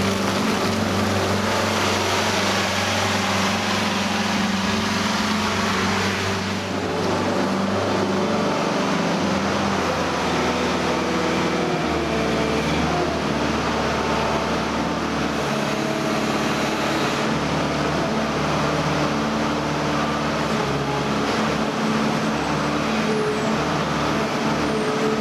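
Skid-steer loader's diesel engine running steadily under work, its engine note stepping to a different pitch a few times as the revs change.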